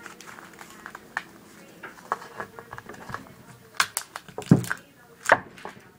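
Sheet of paper being rolled into a tube by hand: soft rustling and small clicks, with a few louder knocks about four to five and a half seconds in, one with a dull thump.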